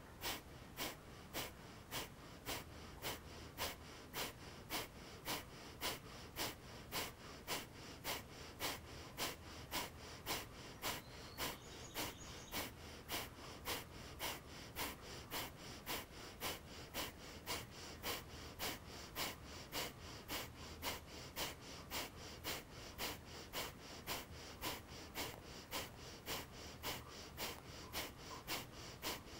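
A woman's kapalabhati (skull-shining) breathing: a steady rhythm of short, sharp exhales pushed out through the nose by the belly, about two a second, with quiet natural inhales between them.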